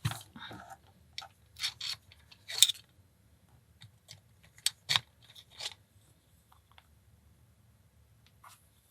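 Scattered light clicks and clinks of small metal lock parts being handled while searching for a follower that fits the lock, with a quiet stretch of a couple of seconds near the end.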